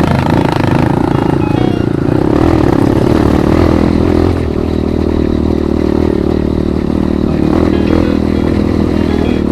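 Motorcycle engine running at a steady pace while riding, easing off slightly about four seconds in.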